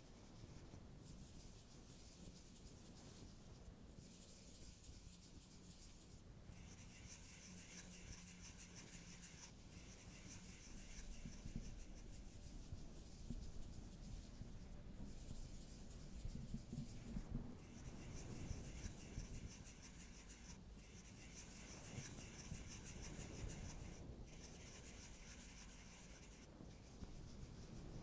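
Quiet fingertip scratching and rubbing on an eyeshadow palette, in bouts of a few seconds with short pauses between them.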